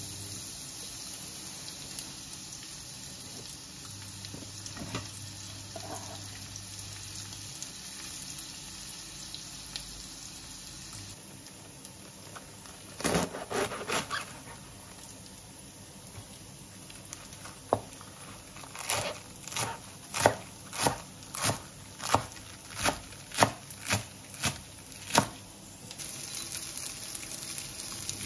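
Chopped onion frying in a pan with a steady sizzle. In the middle, a kitchen knife cuts through a Napa cabbage on a cutting board in about a dozen even chops, roughly one and a half a second. The sizzling comes back near the end.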